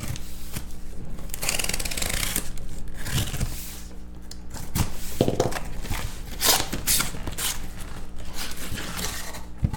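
Utility knife slitting the packing tape on a cardboard shipping carton, then the cardboard flaps being pulled open: a run of irregular scraping and tearing strokes with sharp clicks.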